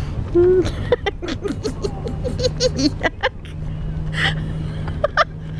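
A person laughing softly in a quick run of breathy bursts, over a steady low hum.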